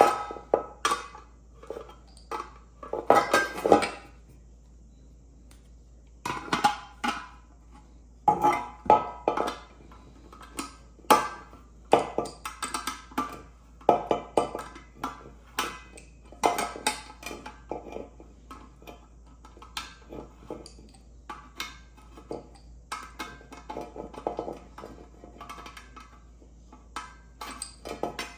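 Irregular metallic clinks, taps and knocks of a pressure cooker lid and its small parts being handled, with a quieter pause about four seconds in.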